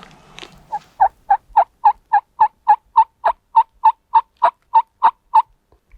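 Wild turkey yelping: a long run of about seventeen evenly spaced yelps, roughly three a second, which stops shortly before the end.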